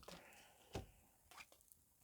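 Soft handling of tarot cards as one is drawn from a deck: a sharp tap a little under a second in and a softer one shortly after.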